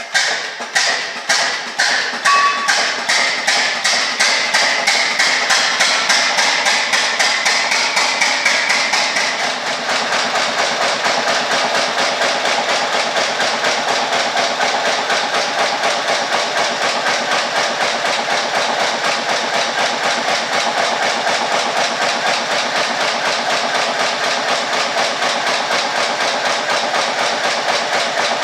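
Blackstone stationary engine running after a start, its exhaust beats quickening over the first several seconds, then settling to a steady, even beat.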